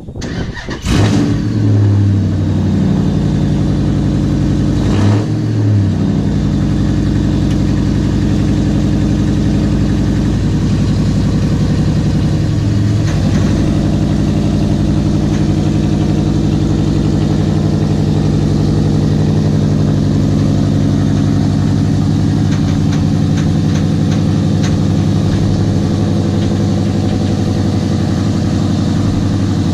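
Vehicle engine running steadily, with brief dips in pitch about two, five and thirteen seconds in.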